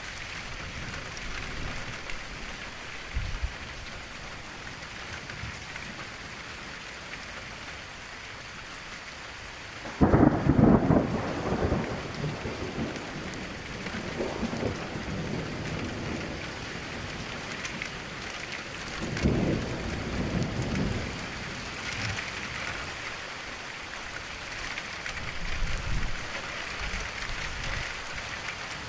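Steady rain falling, with a loud clap of thunder about a third of the way in that rumbles on for a couple of seconds, and a second, weaker rumble of thunder about two-thirds of the way in.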